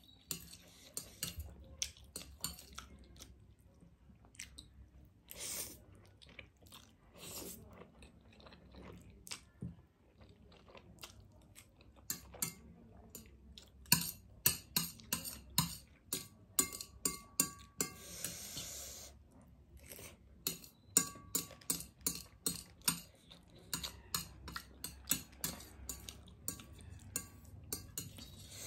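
Close-miked chewing and wet mouth clicks of someone eating spicy ramen noodles, many short sharp clicks coming in clusters, with occasional taps of metal chopsticks against a ceramic plate.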